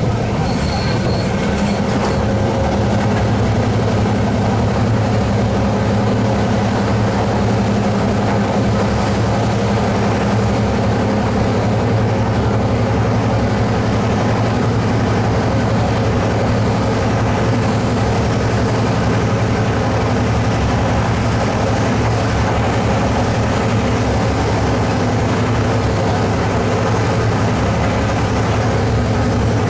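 Clyde-built Da class diesel-electric locomotive 1431 working hard under load: a loud, steady diesel drone with a deep low hum that does not change, mixed with rolling rail noise.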